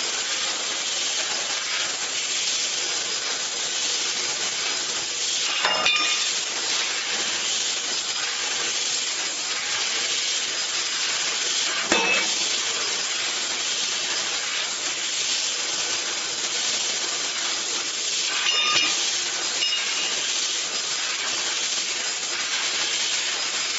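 Tube laser cutting machine cutting steel tube: a steady hiss from the cutting head's gas jet and the cut. Three short, sharp sounds about six seconds apart mark the stops and starts between cuts.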